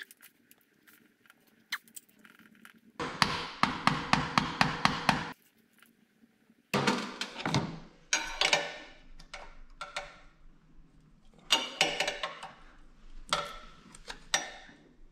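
Steel screwdriver and hook tool scraping, clicking and rattling against the metal backing of a BMW boxer engine's oil sight glass as the stuck glass is wiggled back and forth and pried out of its bore. The sound comes in four bursts with near quiet between them. The first burst is a quick, even rattle.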